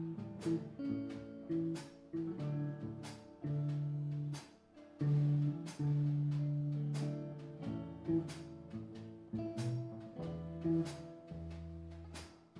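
Live blues band playing an instrumental passage: electric guitars and bass guitar over a drum kit keeping a slow, steady beat.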